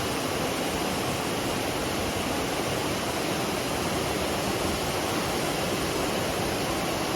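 Steady rushing of a waterfall, McCloud Falls on the McCloud River, water pouring without a break.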